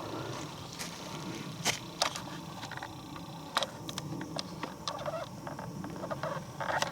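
Footsteps crunching through very dry leaves and twigs on the forest floor, with irregular sharp crackles and snaps.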